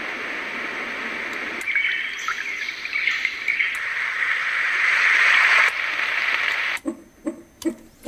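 A white noise machine's small built-in speaker plays its preset sleep sounds as they are stepped through. First comes a steady rushing noise. About one and a half seconds in it switches to a nature track with bird chirps over a rushing background, and near the end to a soft pulse about two or three times a second.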